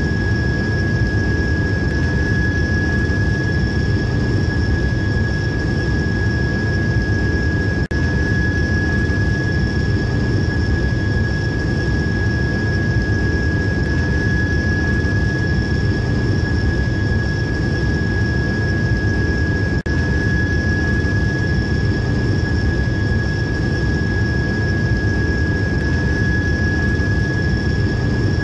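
Train running steadily: a constant low rumble with a steady high-pitched whine above it. The sound drops out very briefly twice, about eight and twenty seconds in.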